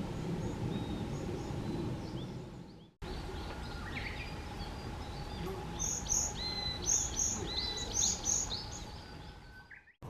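Varied tit singing in the second half: three or four phrases about a second apart, each a pair of high, thin notes followed by a lower drawn-out note. Before that, only faint chirps over low background noise.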